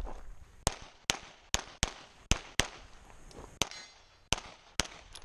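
Pistol shots fired in quick pairs, about ten in all, as a practical-shooting stage is run. A brief metallic ring follows one shot about three and a half seconds in.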